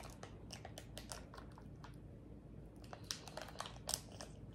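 Faint crinkling and tearing of a small plastic salad-dressing packet being bitten and pulled open, with a few sharper crackles near the end.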